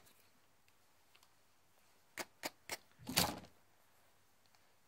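Fly-tying materials and tools handled at the vise: three quick sharp clicks, then a brief, louder rustle about three seconds in.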